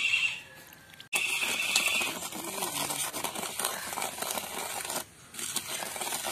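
Wet cement being stirred in a steel plate: the tool scrapes and grinds gritty against the metal. A brief high tone sounds about a second in.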